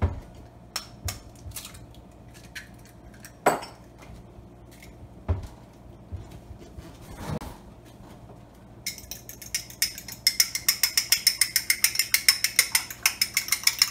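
A few sharp knocks as eggs are cracked into a glass bowl, then from about nine seconds in a fork beating the eggs, clicking rapidly and evenly against the glass.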